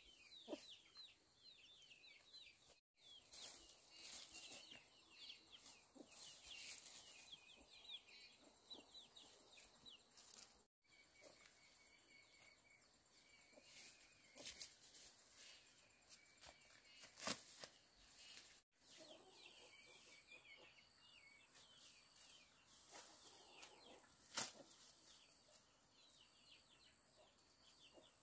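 Faint chickens clucking, with trains of short high chirps and a few sharp clicks or knocks, the loudest around the middle and about three-quarters of the way through.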